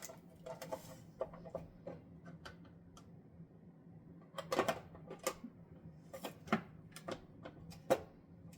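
Irregular plastic clicks and knocks from a hand mandoline's chopping insert as its parts are fitted and pressed down on an onion, with a faint steady low hum underneath. The onion will not go through, so the pressing comes in uneven taps rather than a clean chopping stroke.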